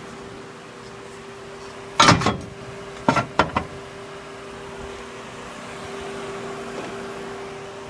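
Two short bursts of welding arc, tack welds joining a square corner, about two seconds in and again a second later, the second broken into several quick spurts. A steady hum continues underneath.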